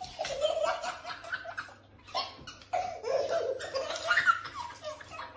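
A baby belly-laughing and giggling in a string of short, high-pitched bursts.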